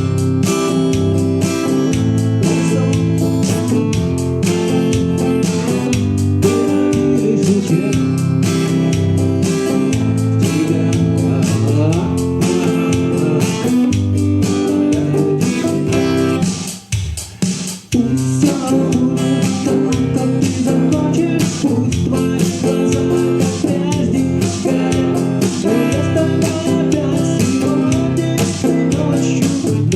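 Fender CD-60 acoustic guitar strummed in chords, played through its pickup and an active speaker. The playing breaks off briefly about halfway through, then carries on.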